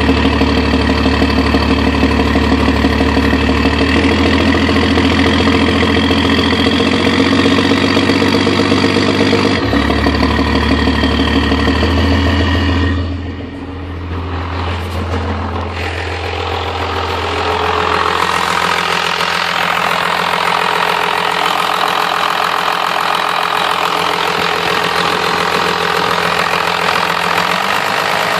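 1997 Cummins 12-valve 5.9-litre inline-six diesel running under load, its exhaust making a funny sound like a jake brake. The sound dips briefly about thirteen seconds in, then changes character from about eighteen seconds on.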